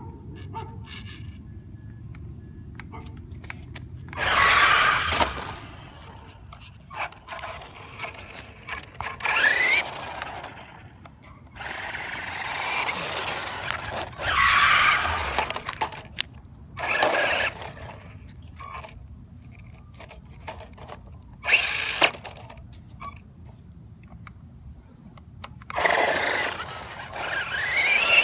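Electric motor of a high-speed remote-control car whining in repeated bursts of acceleration, its pitch rising during each burst, about seven runs with quieter stretches between them.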